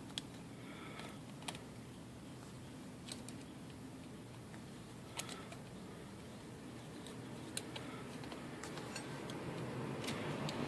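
Scattered sharp little metallic clicks and taps from working on a Remington Noiseless portable typewriter as its paper release lever is refitted, about one every one to two seconds, over a faint steady hum.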